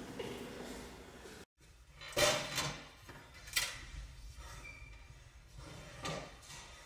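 A few short knocks and scrapes of a chair being pulled out and someone sitting down at a desk, the two clearest about two and three and a half seconds in, over a faint room hum that drops out briefly just before.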